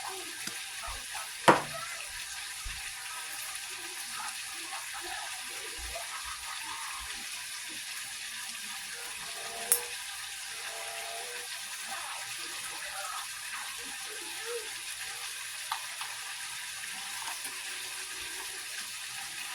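Ribeye steaks sizzling steadily in a hot pan, with a sharp clack about a second and a half in and a lighter knock near ten seconds.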